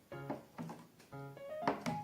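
Background music: a light instrumental tune of short, quickly changing notes, with a couple of sharp clicks near the end.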